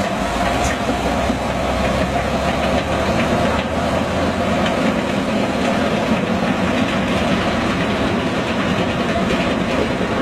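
Half-track military vehicle driving past, its engine and tracks making a steady mechanical noise.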